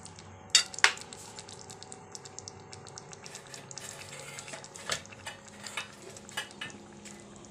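Metal spatula stirring jackfruit curry in a karahi: two sharp clanks against the pan about half a second in, another near 5 seconds, and the masala-coated jackfruit sizzling and crackling in between.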